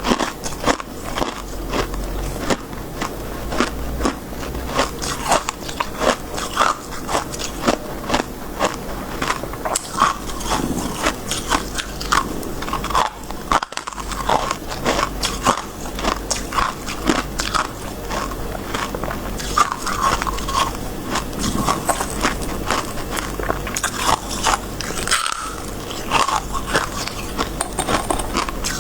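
Close-up biting and chewing of crisp freezer frost (shaved ice), a dense, continuous run of sharp crunches.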